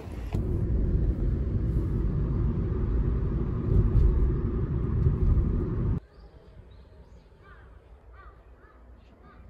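Muffled low rumbling noise from the phone's microphone pressed against trouser fabric. It cuts off suddenly about six seconds in, leaving faint room tone with a few faint short chirps.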